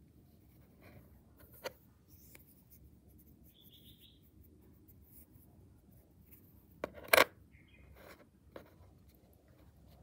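Fingers handling bimetallic 10-baht coins on a tabletop: soft rubbing and scraping with a few sharp clicks of coin on coin or surface. The loudest is a quick double click about seven seconds in.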